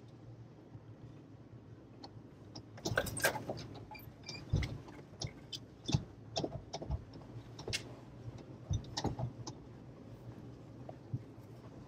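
Cabin sound of a Toyota FJ Cruiser rolling along a rocky dirt track. Its 4.0-litre V6 hums low and steady under irregular knocks and rattles from the body and loose items in the cabin as the tyres go over stones. The knocks are busiest from about three to ten seconds in.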